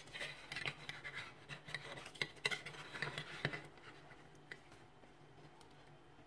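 Metal cake server scraping and clicking against a stainless steel plate as it cuts under a slice of biscuit-crumb-topped cream pudding and lifts it out, the scraping lasting about three and a half seconds.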